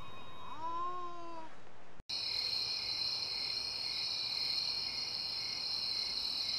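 A cat meows with a long, arching call; then, after an abrupt cut about two seconds in, a steady high-pitched chorus of crickets chirping takes over.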